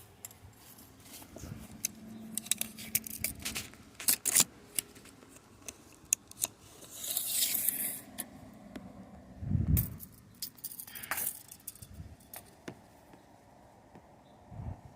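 Handling noise: scattered clicks and light metallic rattles and scrapes, with a longer hissing scrape about seven seconds in and a dull thump near ten seconds.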